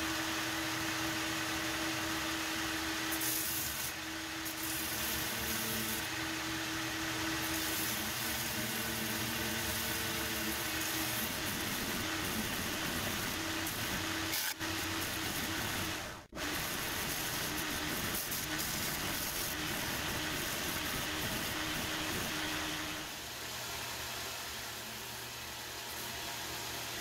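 Homemade heavy-duty belt grinder running with a coarse belt, grinding a clamped stack of torch-cut steel hinge ears: a steady motor hum under a hissing grind of metal against the belt. The sound cuts out briefly twice around the middle and is quieter near the end.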